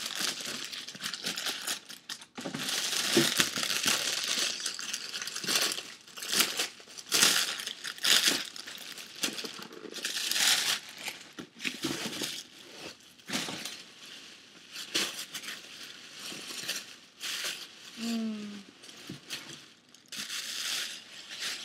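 Packaging crinkling and rustling in irregular bursts as a handbag is worked out of its wrapping.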